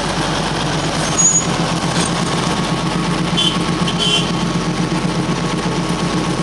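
Darjeeling Himalayan Railway toy train running, heard from on board: a steady rumble of the narrow-gauge train with a constant low hum. Two brief high-pitched squeals come about three and a half and four seconds in.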